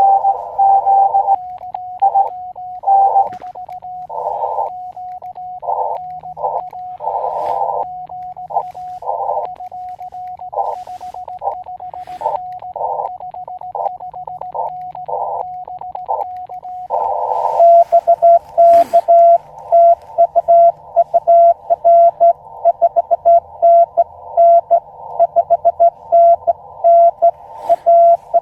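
Morse code (CW) tones from an Elecraft KX2 transceiver: keyed dits and dahs on a tone near 700 Hz. From about 17 seconds in, louder, faster Morse from several stations keying at once takes over: a pileup calling the operator after too long a pause in his message.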